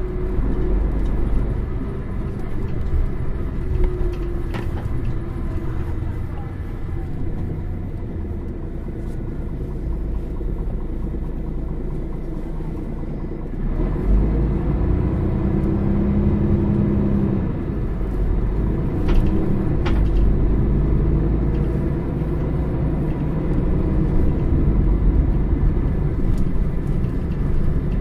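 Mercedes-Benz O550 Integro bus's diesel engine running under way, a steady low drone. About halfway through it grows louder and its note rises, then holds at the higher level.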